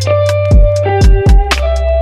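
Music: a guitar melody over held bass notes and a steady kick-drum beat.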